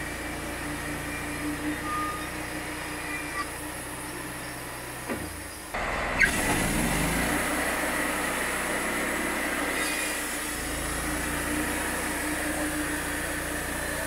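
Wood-Mizer LT35HD bandsaw sawmill running steadily, its engine-driven band blade sawing a pine log lengthwise. The sound changes abruptly about halfway through and a falling whine follows, then the steady running resumes.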